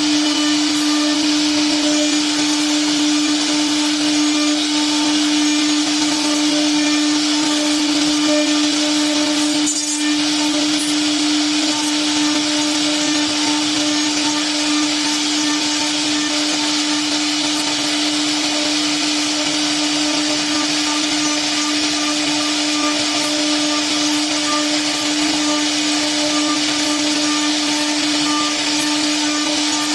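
Three-axis CNC router spindle running steadily while machining a wooden cabinet door: a constant even whine over a steady hiss, with no change in speed.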